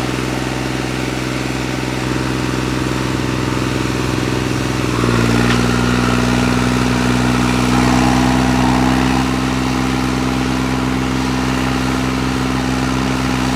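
Diesel engines of a Mahindra Thar and a tractor running steadily under load as they pull against each other in a tug-of-war. About five seconds in, one engine steps up in pitch and gets louder as it is given more throttle, then holds there.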